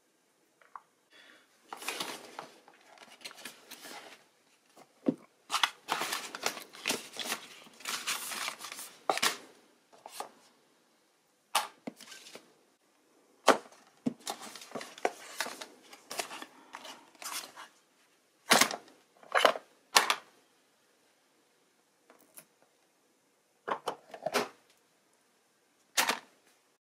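Hands handling a smartphone's cardboard retail box and its accessories: scraping and rustling of card and plastic packaging in several stretches, then a series of separate sharp taps and clicks as pieces are set down in the box.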